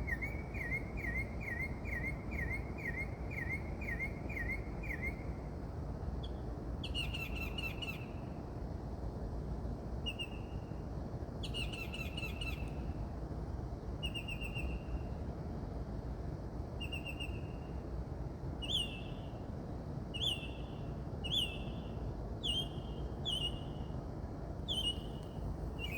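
A songbird singing varied phrases: first a fast run of the same note repeated about three times a second, then two short trilled phrases, then single short whistled notes about once a second. A steady low background hum runs underneath.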